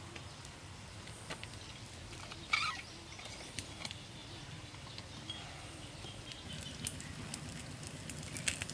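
Faint scattered crackles and small taps from cooking over a small wood fire: the fire burning under a pan while cookware is handled, with a louder tap about two and a half seconds in and a little cluster of clicks near the end.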